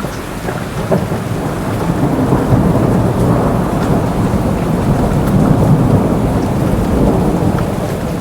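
Rolling thunder over heavy rain, building up to a peak midway and then easing off.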